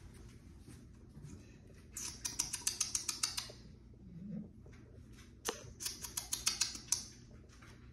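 A pit bull puppy's toenails clicking on a hard floor as it walks, in two quick runs of clicks: one about two seconds in, the other about five and a half seconds in.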